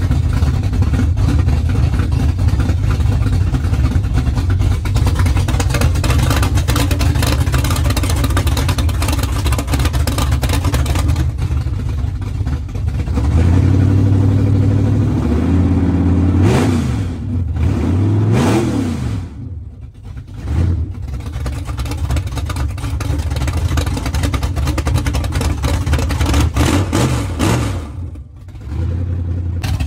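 Lifted 1970s Ford pickup's engine running just after being started, its exhaust loud and steady. Past the middle it is revved up and down, with a couple of quick sharp blips, then settles back.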